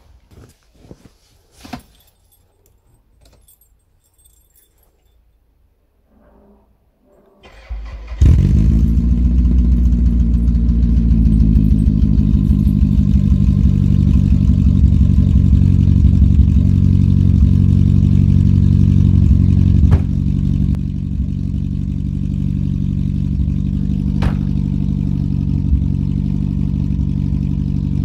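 Toyota Vista's engine starting from cold about eight seconds in, after a few faint clicks, then running loudly at a steady idle; the level drops slightly about twenty seconds in.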